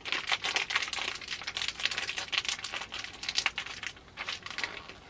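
A snack muffin's wrapper crinkling and crackling in the hands as it is opened, a dense run of irregular crackles.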